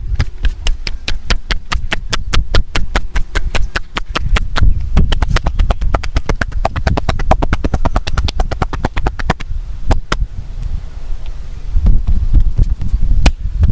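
Rapid, rhythmic hand taps of a percussive massage, about four to six strikes a second, thinning to a few single strikes near the end.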